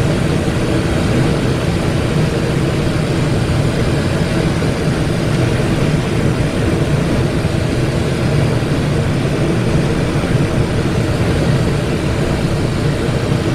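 Steady cockpit noise of a Cessna Citation XLS business jet on final approach: airflow rushing over the flight deck with a low, even hum from its twin turbofan engines.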